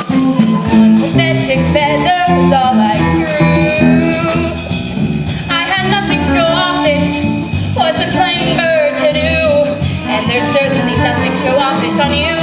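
A woman singing a musical-theatre show tune with vibrato over instrumental accompaniment.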